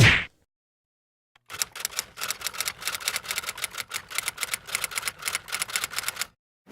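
A short, loud hit at the start, then, after a pause of over a second, a rapid run of typing key clicks, about eight a second, that stops abruptly about a second before the end.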